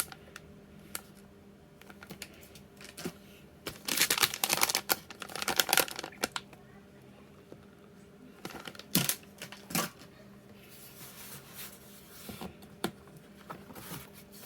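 Packaging being handled while unboxing a keyboard kit: two spells of crinkly rustling as the foam and wrapping are pulled out, with scattered sharp clicks and taps of parts and box being moved, two louder clicks about nine and ten seconds in.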